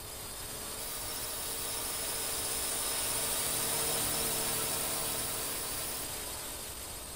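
Aircraft passing overhead: a rushing engine noise with a steady hum that swells to its loudest about four seconds in, then fades away.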